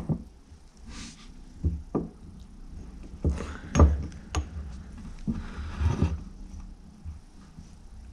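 Handling noises as a rubber piston seal is worked by finger into the bore of a motorcycle brake caliper: irregular light knocks and taps of the caliper against a wooden workbench, with brief rustling in between.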